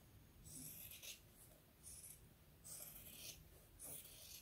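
Sharp scissors snipping through sewn fabric and interfacing as an appliqué shape is trimmed: faint cuts, about one a second.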